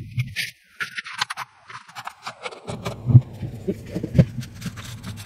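Light scrapes and ticks of hand work on a circuit board during cleaning, with two louder knocks, over a low bench hum that drops out about half a second in and returns near three seconds.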